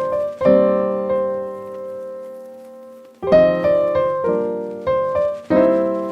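Background piano music: gentle chords struck and left to ring and fade, with a long sustained chord early on before a new phrase begins.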